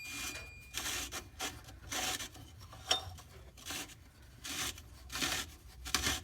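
Repeated hand rubbing or scraping strokes, roughly one or two a second, with a brief sharp tick about three seconds in.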